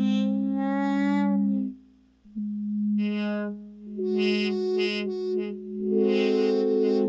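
ASM Hydrasynth hardware synthesizer played polyphonically over MPE: a few held chords of two or three notes, each swelling in, with its brightness rising and falling as the notes sustain.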